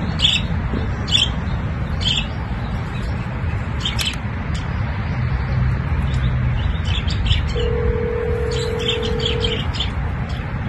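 Caged pet birds chirping in short, high bursts. About two-thirds of the way in, a telephone ringback tone sounds once for about two seconds. A steady low rumble runs underneath.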